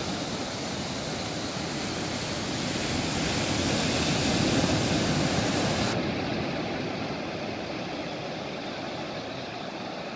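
Ocean surf breaking and washing up the beach in a steady rush that swells about four seconds in and then eases; the hiss turns duller suddenly about six seconds in.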